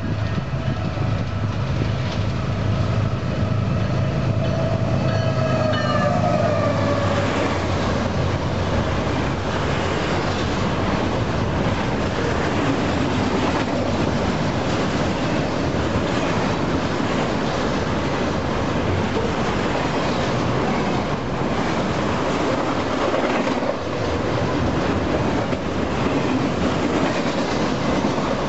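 Union Pacific diesel locomotives passing close, with a low hum and a steady multi-note tone that drops in pitch as they go by about six seconds in. Then the loud, steady rumble and clatter of double-stack container cars rolling past at speed on jointed wheels.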